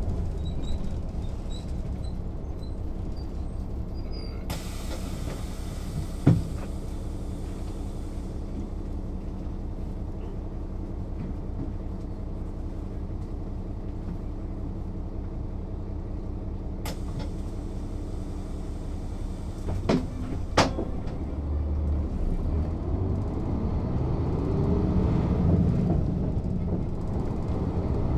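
Mercedes-Benz O 407 city bus heard from on board, its straight-six diesel running steadily. A hiss comes in about four seconds in, and a few sharp knocks sound about six and twenty seconds in. The engine note rises and grows louder over the last several seconds.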